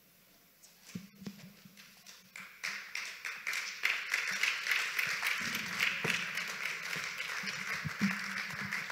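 Audience applause: a patter of many hands clapping begins about two and a half seconds in and keeps going, after a couple of faint knocks.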